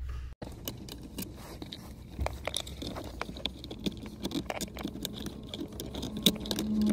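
Irregular small clicks and taps of a steel mounting bracket and bolt being handled and positioned by hand under a car dashboard, among wiring looms. A steady low hum comes in near the end.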